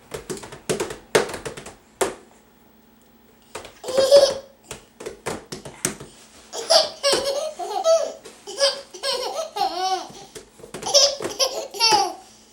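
Baby boys laughing in repeated short bursts of high-pitched giggles, with a pause of about a second about two seconds in.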